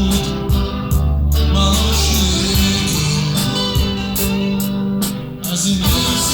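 Rock band playing an instrumental passage with guitar to the fore over bass and drums.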